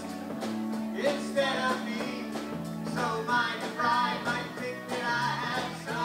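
Live rock band playing: a woman singing over electric guitar, bass guitar and drums.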